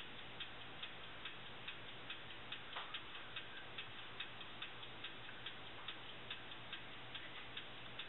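Steady mechanical ticking, about two and a half ticks a second, with a faint low hum underneath.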